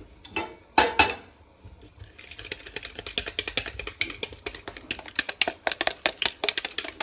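Wire whisk beating pancake batter in a plastic mixing bowl, a fast, even run of clicks against the bowl, with a couple of louder knocks about a second in.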